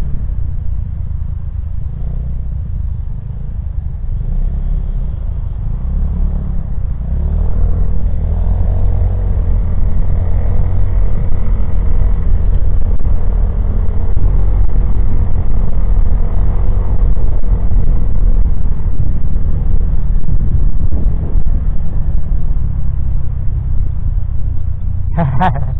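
Motorcycle engine running with road and traffic rumble, heard from the moving bike. It grows louder about eight seconds in and stays up through the middle. A brief higher sound cuts in near the end.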